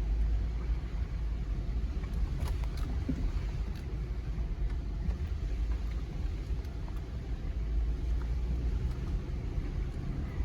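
Jeep Gladiator Rubicon with its 3.6 Pentastar V6 driving slowly on an off-road trail, heard from inside the cab: a steady low rumble of engine and tyres, with a few light clicks and knocks from the truck.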